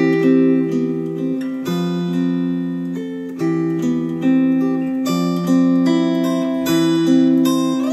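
Acoustic guitar music played back through a bookshelf speaker: chords struck about once a second, each left to ring and fade before the next.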